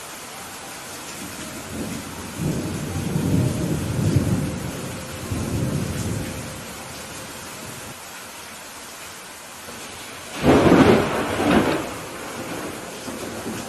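Steady rain in a thunderstorm. Thunder rumbles low through the first half, then a louder, sharper thunderclap comes about ten seconds in and rolls off within two seconds.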